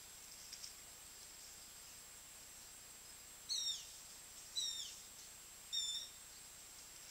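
A bird calling three times, about a second apart: short high notes, the first two sliding down in pitch and the last held level. A thin steady high whine and faint hiss run underneath.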